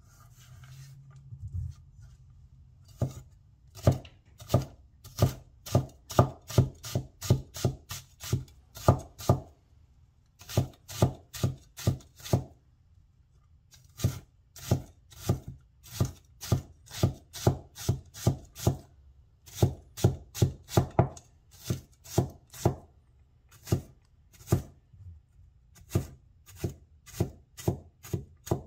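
Chinese vegetable cleaver chopping carrot strips into small dice on a wooden cutting board: after a soft shuffle of the strips being gathered, a long run of sharp knocks begins about three seconds in, about two to three a second, with a few brief pauses.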